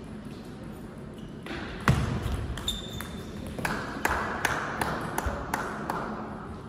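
Table tennis ball clicking: a hard hit about two seconds in, then a string of lighter ball bounces and taps, about two or three a second, as a rally ends and the ball is gathered.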